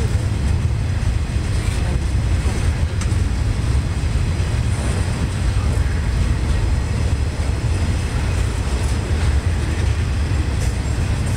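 Freight cars of a loaded rail train rolling past on the track: a steady low rumble of wheels on rail, with a few faint clanks.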